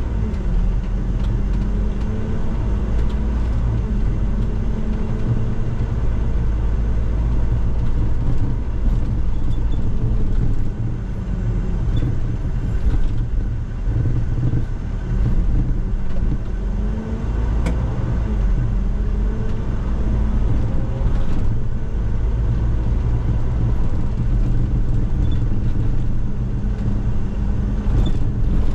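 Inside a moving MMI Urby LE CNG city bus: its Iveco 3-litre CNG engine runs under load with a heavy road rumble. The engine note rises and drops back several times as the bus pulls away and changes speed. A steady hiss of air draught runs underneath.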